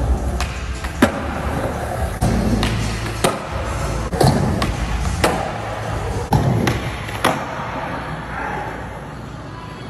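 Skateboard wheels rolling on smooth concrete, broken by a string of sharp tail pops and board landings, with background music underneath.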